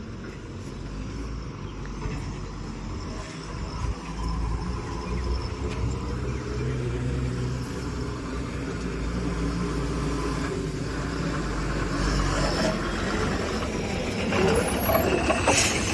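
A motor vehicle's engine running with a steady low rumble, growing louder near the end, with a brief rattle just before it closes.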